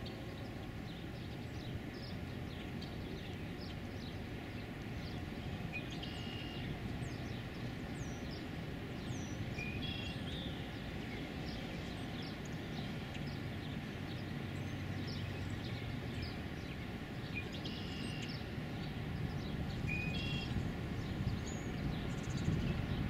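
Steady low outdoor rumble of distant traffic, with a bird's short high call repeating several times.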